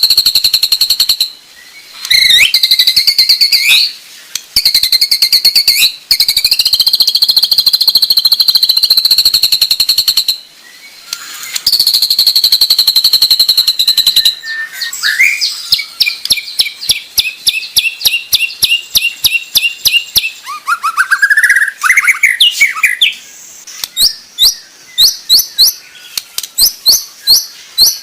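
Songbird singing loud, fast song. Long buzzy rattling trills held at a high, steady pitch make up the first half, with short breaks. Then come quick repeated sweeping notes, a rising whistled phrase, and, near the end, short sharp notes about twice a second.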